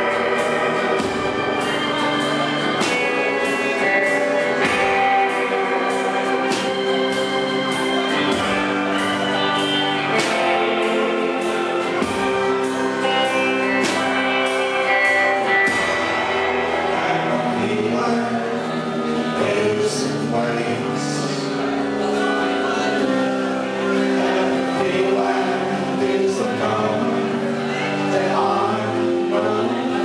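Live indie rock band playing a song: acoustic and electric guitar, keyboard and drum kit, with a male voice singing over it.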